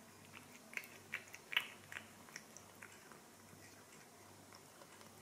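A cat eating wet food from a plastic bowl: faint, soft chewing and licking clicks, busiest in the first two seconds and thinning out after.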